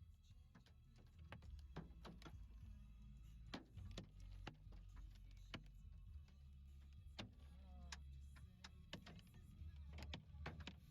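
Scattered hailstones striking a hard surface: irregular sharp ticks, several a second at times, over a low steady rumble.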